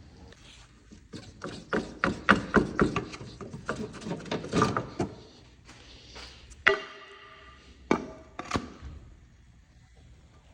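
Repeated hammer blows on metal, as a broken locking wheel nut is knocked at to break it off. A quick, uneven run of knocks is followed by one strike that rings on like struck steel, then two more knocks.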